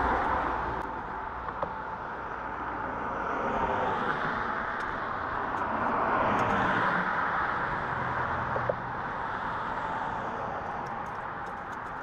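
Passing cars: a hiss of tyres on the road that swells and fades about three times.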